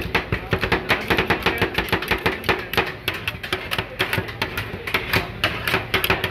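Two metal spatulas rapidly chopping and mashing chocolate ice cream mixture against a steel freezing plate for rolled ice cream: quick, sharp metal-on-metal clacks, several a second.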